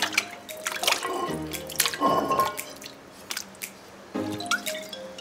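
Raw chicken pieces and ginger slices dropped into a pot of water, giving a series of short plops and splashes.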